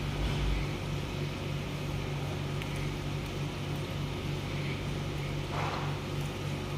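Steady low mechanical hum of room machinery, with a brief low rumble at the start and a short soft rustle near the end.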